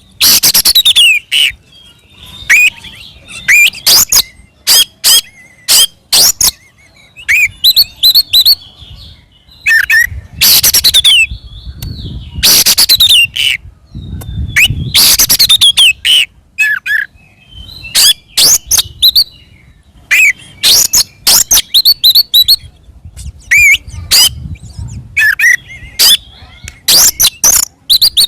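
Oriental magpie-robin (kacer) singing loudly in short, separated bursts of sharp whistled notes and fast chattering trills. This is its aggressive 'fighting' song, the kind used as a lure to provoke other magpie-robins into answering.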